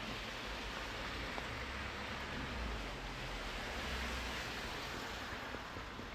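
Steady rainfall, an even hiss with a low rumble underneath and a few faint drop ticks.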